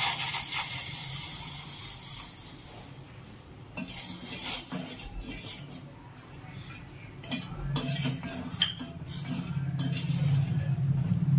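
Milk hitting a hot stainless-steel pan of dry-roasted fenugreek seeds hisses and sizzles, fading over the first few seconds. Then a steel spoon stirs, clinking and scraping against the pan.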